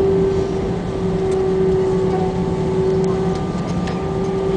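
Cabin noise of an Airbus A320 rolling out along the runway after touchdown: a steady engine drone with a strong steady hum, easing a little in level as the jet slows.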